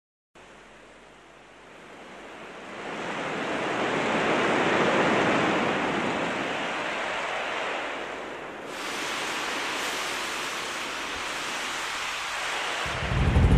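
A steady rushing noise, like wind or moving water, that swells over the first few seconds and turns brighter and hissier about two-thirds of the way through.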